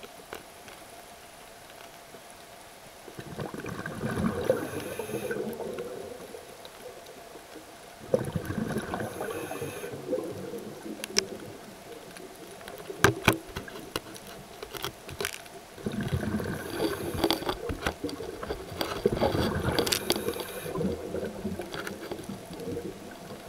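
Underwater bubbling from a scuba diver's regulator exhaust: three long gurgling bursts of exhaled bubbles several seconds apart, with a few sharp clicks in the quieter stretch between the second and third.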